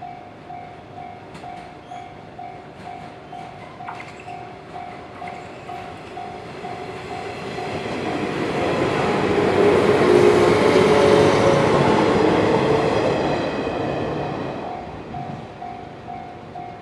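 Japanese level-crossing warning bell ringing at a steady pace of about two strokes a second while a train passes over the crossing, its noise building from about seven seconds in, loudest around ten to twelve seconds, then fading as the bell keeps ringing.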